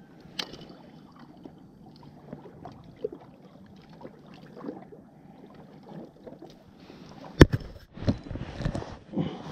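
Faint lapping water under soft clicks and rustles as fishing tackle and a small fish are handled by gloved hands. A single sharp knock comes about seven seconds in, followed by louder rustling close by.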